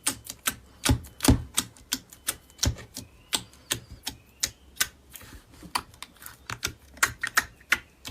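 Slime being worked by hand, giving off a quick, irregular run of sharp clicks and pops, a few each second.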